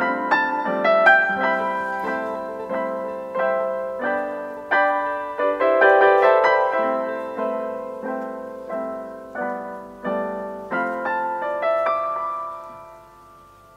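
Background piano music, single notes and chords struck at a gentle, even pace and dying away, fading out near the end.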